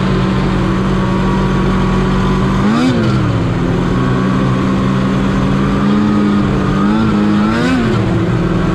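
Snowmobile engine running at a steady pitch, with three quick throttle blips that rise and fall in pitch: one about three seconds in and two close together near the end.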